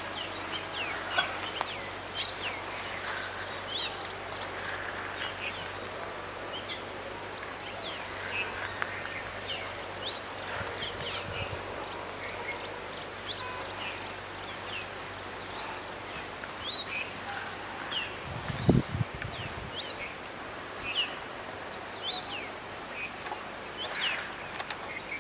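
Outdoor ambience with many short, quick bird chirps scattered throughout over a steady background hiss. A single low thump about three-quarters of the way through.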